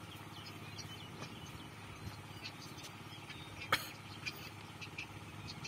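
Quiet trackside ambience: scattered short bird chirps over a faint, steady low hum, with one sharp click about two-thirds of the way through.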